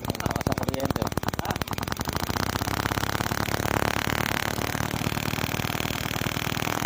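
Kawasaki Bajaj CT100's single-cylinder four-stroke engine running steadily at idle, a rapid even train of firing beats, with the ignition now giving a strong spark after the primary coil work.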